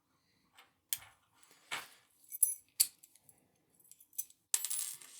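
Metal clicks and clinks as a just-picked Master Lock Magnum padlock and its picking tools are handled, a few separate sharp clicks followed near the end by a brief scraping rattle.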